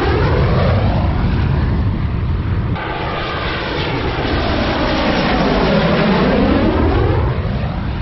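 Dassault Mirage F1's Atar 9K-50 turbojet passing low overhead on landing approach: a loud, steady jet rumble with a sweeping, phasing whoosh as the aircraft goes by. About three seconds in the sound cuts abruptly to a second low pass, which sweeps down and back up again.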